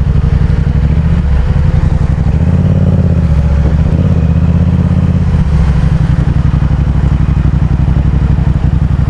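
Yamaha XSR700's parallel-twin engine, breathing through a Yoshimura R77 carbon exhaust, running at low revs. The revs rise briefly in the middle and then settle back.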